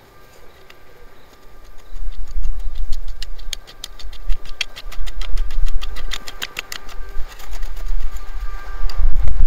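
Hand hoe scraping and raking loose, dry soil and straw onto a planting ridge: a quick run of gritty scratches from about two seconds in, thinning out near the end, over a steady low rumble.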